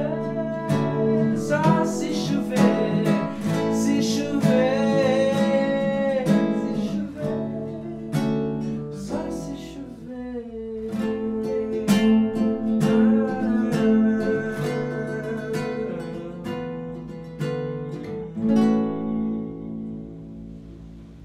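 Acoustic guitar strummed and picked with a male voice singing the melody over it; the playing thins out near the end and a last chord rings and fades away.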